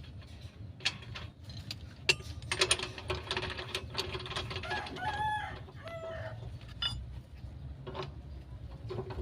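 A rooster crowing once about five seconds in, a rising-then-falling call with a short tail, over scattered metallic clicks and clinks from hand-tool work.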